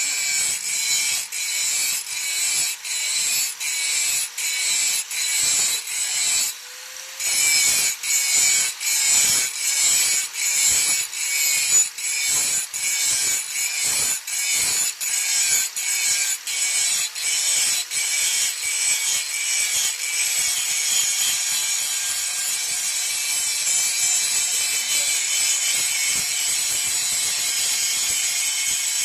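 Rasping of a steel blade being sharpened: rhythmic strokes about one and a half a second, with a brief pause about seven seconds in, turning into a continuous rasp after about twenty seconds.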